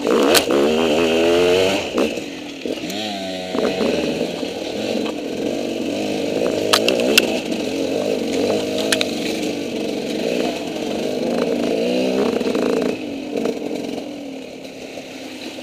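KTM 200 EXC single-cylinder two-stroke enduro engine, its exhaust pipe trashed, revving up and down over and over as the bike is worked through tight trail. There are a few sharp knocks along the way, and near the end the engine drops back to a lower, quieter note.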